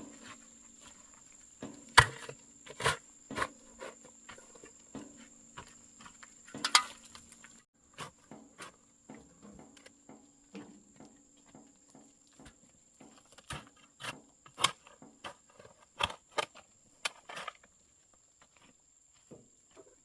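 Irregular knocks and clicks, some sharp and loud, over a steady high-pitched insect drone.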